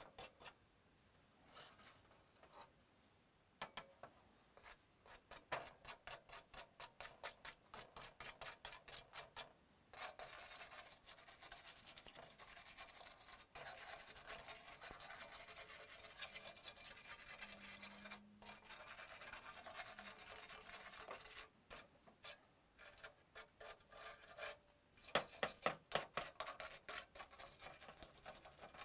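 A small bristle brush scrubbing dust off a PS4 motherboard, faint. It starts as quick back-and-forth strokes, three or four a second, then runs into a steadier scratchy scrubbing, with short strokes again near the end.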